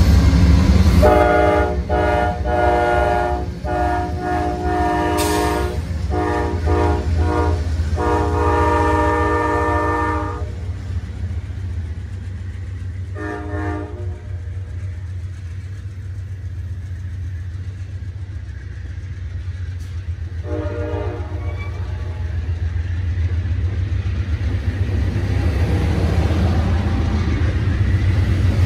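Amtrak P42DC diesel passenger locomotive sounding its chime horn in a series of blasts over the first ten seconds, then two short blasts near the middle and about two-thirds through, over the low rumble of the running diesel. Bi-level passenger cars then roll past, the wheel and rail noise growing louder toward the end.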